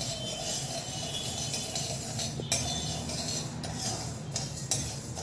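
Dry moong dal being stirred and scraped with a spatula in an aluminium kadai as it roasts, with a few sharper scrapes or clicks of the spatula on the pan, over a steady low hum.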